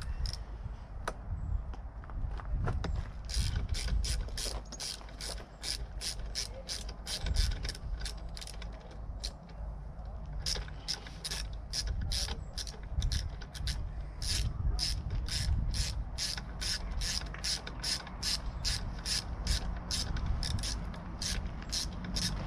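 Small hand ratchet clicking in steady runs, about three to four clicks a second, as a bolt is backed out of a motorcycle's rear bodywork; the clicking starts about three seconds in and pauses briefly about nine seconds in.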